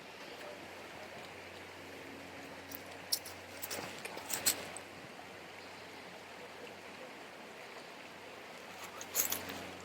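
Steady rush of a flowing river. A few short, sharp clicks come through about three to four and a half seconds in and again near the end.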